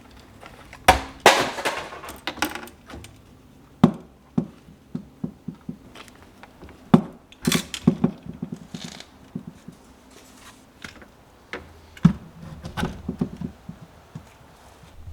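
Fishing rods and gear being handled and set into a wall-mounted rod rack: irregular knocks, clicks and short rattles. The loudest rattles come about a second in and again around seven to eight seconds.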